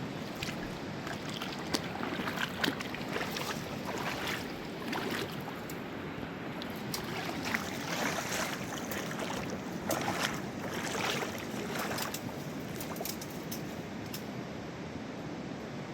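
Mountain river rushing steadily, with irregular short louder bursts of water noise on top.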